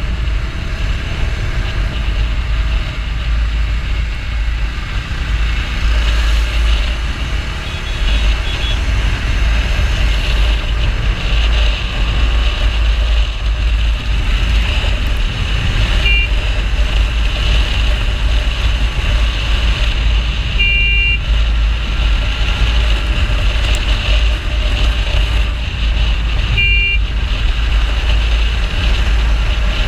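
Bajaj Dominar 250 motorcycle cruising at about 80 km/h, with heavy wind rush and buffeting on the microphone over the engine and road noise. A vehicle horn toots briefly three times: about halfway through and twice more in the later part.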